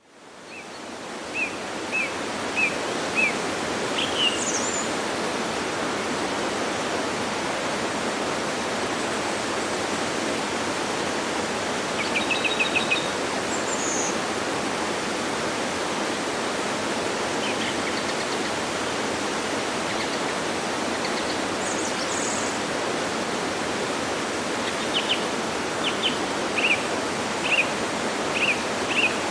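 Steady rush of a waterfall fading in over the first second, with birds calling over it: a run of short chirps near the start, a quick trill about twelve seconds in, and more chirps near the end.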